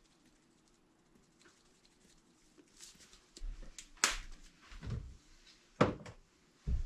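Quiet room tone for about three seconds, then a few sharp clicks and knocks from kitchen items being handled and set down, the loudest about four seconds in and another near six seconds, with a dull thump near the end.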